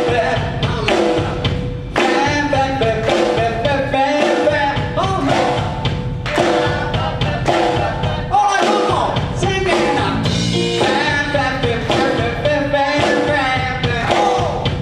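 Live band playing with a singer, drum kit beating steadily under the vocals.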